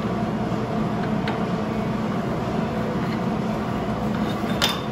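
A steady low machine hum, like a running fan or motor. There is a faint tick about a second in and a sharper click near the end.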